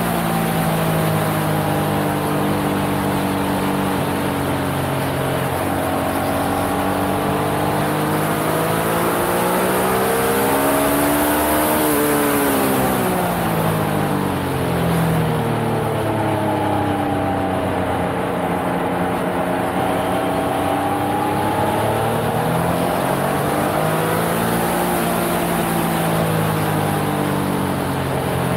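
Yamaha XSR900's inline three-cylinder engine under hard riding, its revs rising and falling again and again as the bike accelerates and slows, with a long climb to a high point about twelve seconds in followed by a sharp drop.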